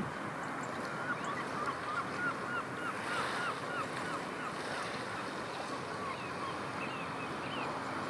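Strong wind and surf, with a bird calling a quick series of short, hooked notes from about a second in until near the end.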